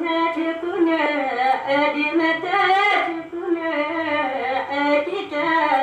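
An elderly woman singing a Naxi folk song solo, in long held, wavering phrases, with a short break about three seconds in.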